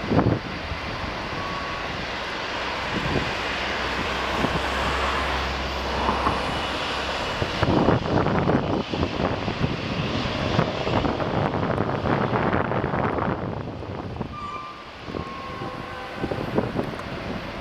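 Boeing 757 jet engines running at taxi power, a steady rushing whine, with wind rumbling on the microphone at times.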